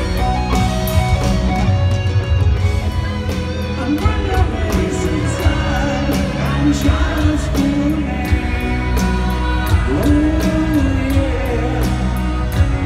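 Live rock band playing a slow ballad: grand piano and drums with electric guitar, and a voice singing over it through the middle, heard through the crowd's recording.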